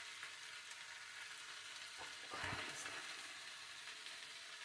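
Vegetable chow mein sizzling as it fries in a pan, with a short scrape of the stirring spoon about two seconds in.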